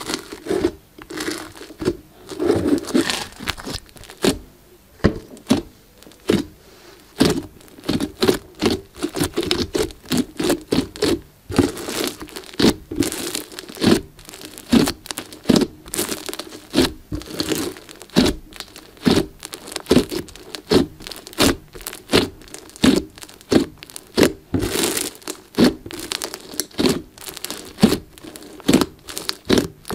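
Glossy slime mixed with small beads being squeezed, poked and folded by hand. It gives a steady run of sticky pops and crackles, about two a second.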